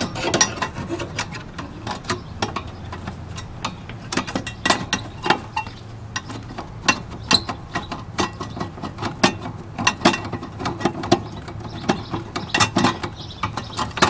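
Screwdriver working a screw out of the metal burner housing of a propane camper fridge, with a long run of irregular clicking, several clicks a second.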